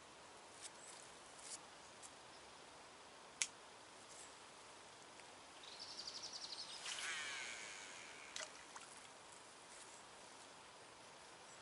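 Baitcasting fishing reel whirring for about two seconds with rapid, even ticking, midway through, preceded by a single sharp click. Faint outdoor background hiss.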